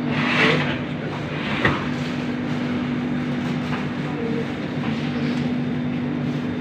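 Steady machine hum with a low, even drone, with a brief louder rush near the start and a sharp click about a second and a half in.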